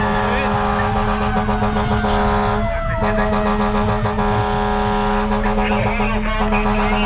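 Fire engine under way on an emergency run: its engine runs with a steady drone while a siren tone slowly falls in pitch, winding down twice.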